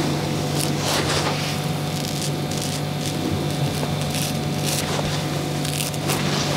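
Straight razor shaving stubble on the cheek, heard close on a lapel microphone as short scraping strokes, roughly two a second, over a steady low hum.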